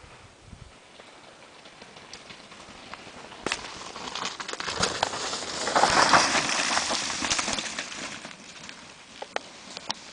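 Downhill mountain bike approaching and passing close by, its tyres hissing and crunching through wet snow and dirt, loudest about six seconds in and then fading away. A few sharp clicks are heard along the way.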